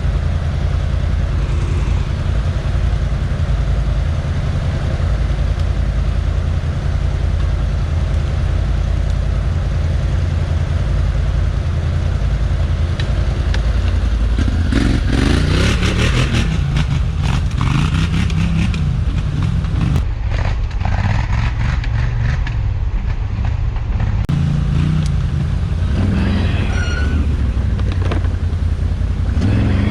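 ATV engine running steadily, then revved up and down repeatedly about halfway through and again near the end, with some clatter.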